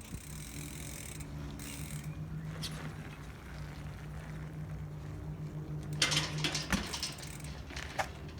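A mountain bike's rear freehub buzzing with rapid ratchet clicks as the wheel spins freely. A few louder sharp knocks come about six seconds in and again near the end.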